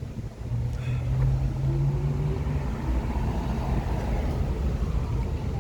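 Low rumble of a motor vehicle running nearby, with a steady engine hum for the first couple of seconds.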